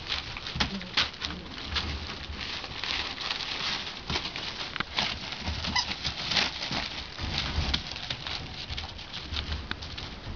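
Rough collie puppies scrambling and wrestling on newspaper: a continuous rustling and crinkling of paper, dense with small clicks and taps from their paws.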